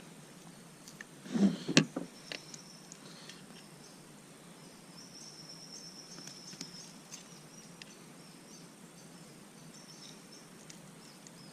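Faint buzzing of insects out in the open, in a thin high line that comes and goes. A short cluster of knocks with one sharp click sounds about one and a half to two seconds in.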